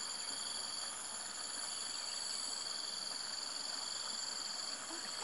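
Steady chorus of insects in a rice field: several high, even trilling tones sounding together over a soft background hiss.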